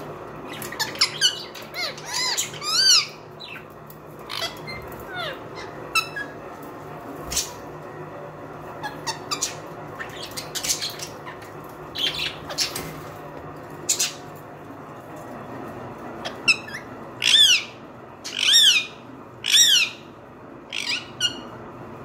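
Small pet parrots calling: many short chirps and squawks, with three loud ringing calls about three-quarters of the way through, and a few sharp clicks between them.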